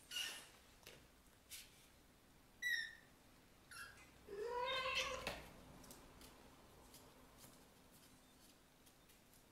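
Kittens mewing: several short, high mews in the first few seconds, then a longer, lower meow that rises in pitch, about four seconds in. It is the loudest call and lasts about a second.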